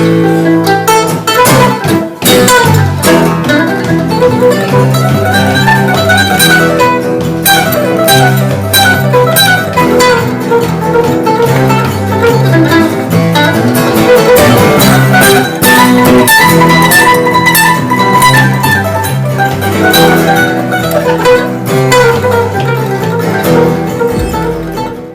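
Acoustic bluegrass music with plucked guitar and mandolin picking over a steady walking bass line.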